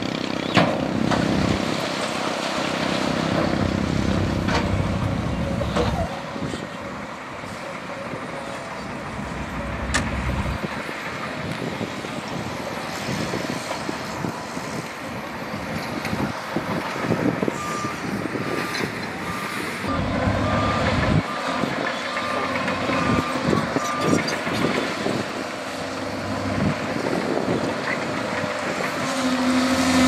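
Heavy diesel earthmoving machinery running, its engine noise changing abruptly a few times. Past the middle, a reversing alarm beeps steadily, a little over once a second, for about six seconds.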